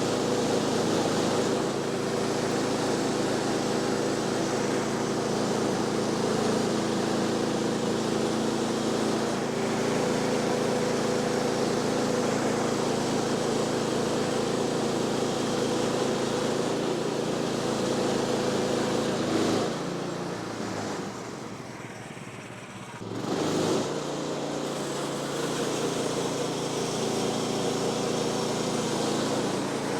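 Woodland Mills HM126 sawmill's engine running steadily. About twenty seconds in it drops back for around three seconds, then runs up again.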